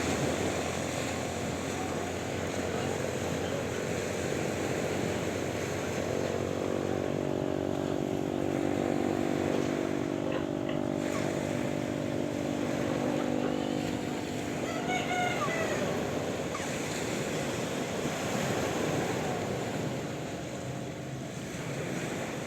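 Sea waves washing steadily. A steady, low pitched hum rises out of the surf for several seconds midway, and a short call sounds about fifteen seconds in.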